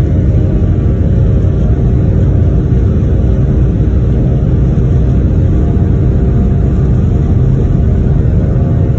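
Boeing 737-900's CFM56-7B jet engines at high thrust during the takeoff roll, heard from inside the cabin as a loud, steady rumble with a faint hum above it.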